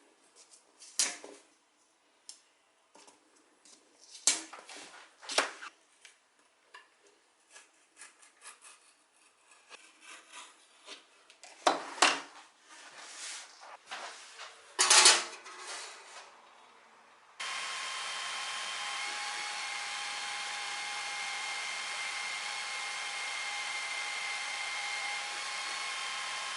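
Scattered knocks, taps and short scrapes of hand work with tools on wood, then, about two-thirds of the way in, an electric tool's motor switches on suddenly and runs steadily with a whining hum.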